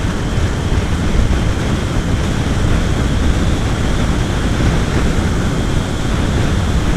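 Loud, steady wind rush over the microphone of a motorcycle at speed, with the motorcycle's engine running underneath.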